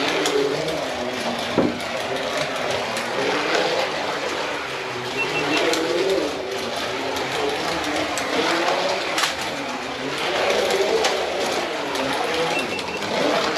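Carrera DIGITAL 132 slot cars' small electric motors whining around the track, the pitch swooping up and down over and over as the cars speed up and slow down. A sharp click sounds about one and a half seconds in.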